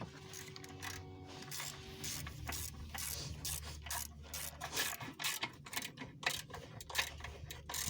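Ratchet wrench clicking in quick, irregular runs as the oil pan bolts are worked, over a low steady hum.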